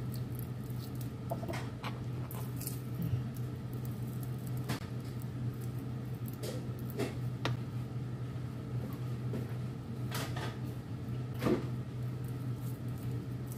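Fingers pulling soft, sticky dates apart to remove the pits: faint squishing with scattered small clicks, over a steady low hum.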